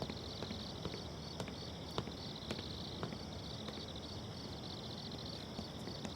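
Insects trilling steadily, a fast, high, pulsing chirr like crickets on a night soundtrack, with a few faint scattered clicks.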